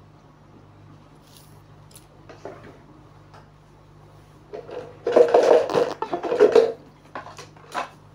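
Clicks and a couple of seconds of scraping and clattering from small hand tools and parts being handled on a workbench, loudest in the second half, over a faint steady electrical hum.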